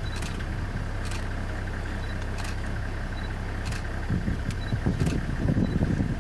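Vehicle engine idling steadily, with a few louder low rumbles about four to six seconds in and several faint short high ticks.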